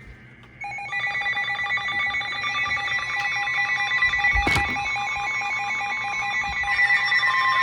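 Electric alarm bell wired to a weather radio, ringing continuously with rapid strikes, set off by the radio's alert for a severe thunderstorm warning. It starts about half a second in, with a single knock near the middle.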